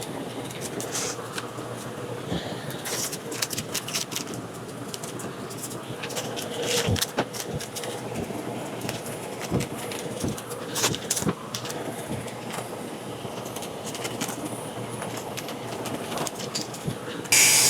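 Scattered clicks, taps and rustles of hand work on the car, then an electric drill starts up loud and steady near the very end.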